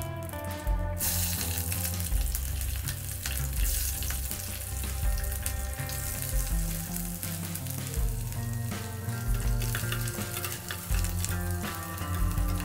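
Food sizzling as it fries in hot oil in a cooking pan; the sizzle swells up about a second in. Background music plays under it.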